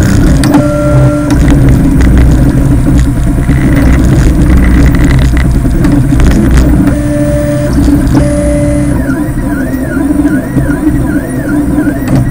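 3D printer running a print, its stepper motors whining in short steady tones that jump from pitch to pitch over a steady low hum. In the last few seconds one tone wavers up and down about once a second.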